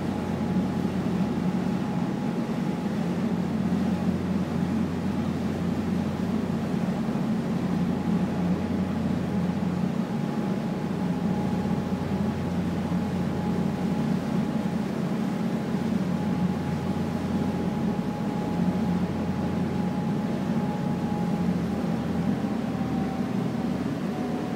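Passenger ferry's engines running under way with a steady low drone, heard from the deck. A thin whine sits above the drone and drops slightly in pitch near the end.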